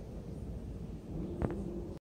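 Room tone of a large gallery hall: a steady low rumble and hum, with a short double click about one and a half seconds in.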